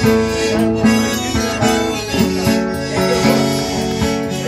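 Accordion and acoustic guitar playing an instrumental passage of a gaúcho folk song: the accordion holds chords that change about two seconds in, over the guitar's steady strumming.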